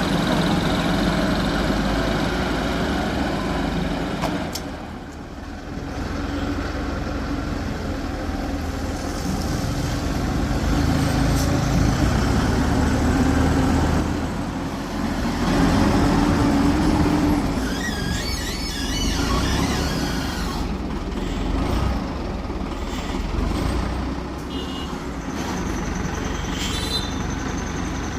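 Heavy construction machine's diesel engine working under varying load, its note swelling and easing, with a brief high warbling squeal about two-thirds of the way through.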